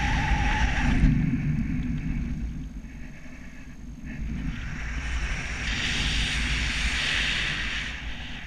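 Wind rushing over a pilot-mounted camera microphone in paraglider flight, a deep rumble with hiss. It eases off after about a second, is quietest in the middle, then builds again.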